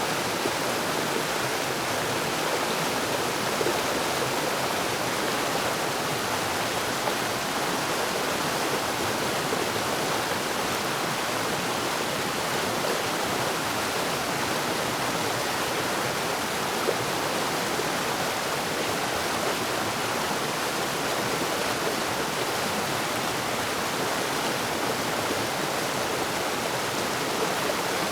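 Forest waterfall: water falling and rushing over rocks in a steady, even rush.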